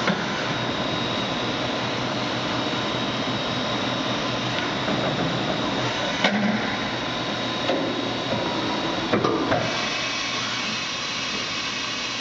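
Fadal VMC-4020FX vertical machining center running, its table and spindle head moving on their axes: a steady mechanical whir with a faint high tone and a few sharp clicks.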